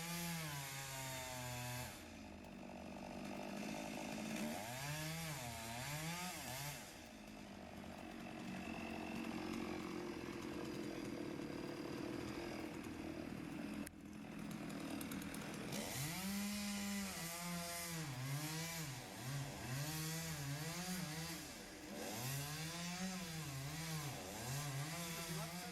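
Chainsaw running and cutting, its engine revving up and dropping back again and again in rising and falling sweeps, with steadier stretches in between.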